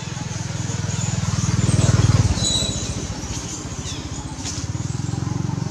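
An engine running with a low, fast, even pulse, swelling to its loudest about two seconds in and then dropping off suddenly to a steadier, lower running sound.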